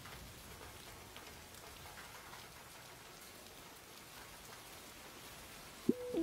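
Steady rain falling and pattering on surfaces. Just before the end, a held low musical tone from the film score comes in suddenly.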